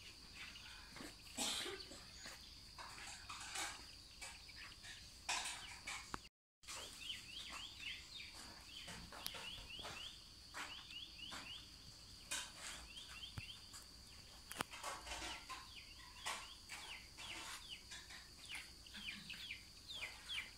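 Chickens calling: runs of short, high-pitched, falling chirps repeated again and again, faint, over a steady high-pitched hum.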